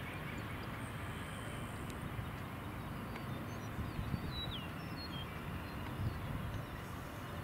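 The Israel Aircraft Industries Astra SPX business jet's twin Honeywell TFE731 turbofans running at low power as it rolls along the runway, heard from a distance as a low, steady rumble. A few bird chirps come in around the middle.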